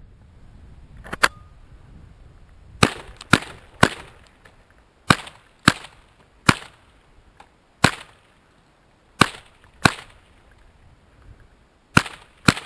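Marlin Model 60 semi-automatic .22 LR rifle firing about a dozen shots at an uneven pace, some in quick pairs about half a second apart.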